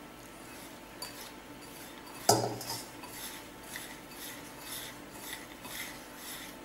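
Hand rubbing and mixing red poha flour with ghee in a glass bowl: soft scraping strokes about twice a second. A single sharp clink, as of the steel vessel knocking or being set down, comes a little over two seconds in.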